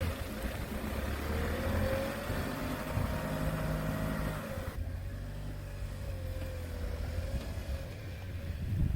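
Hydraulic log splitter's engine and pump running steadily, with a whine that rises and falls in pitch as it works; a hiss over it drops away suddenly about halfway through.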